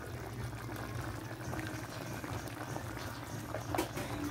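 Chicken and potato curry in coconut milk bubbling as it simmers in a pot, with a steady low hum underneath. There is a short knock near the end.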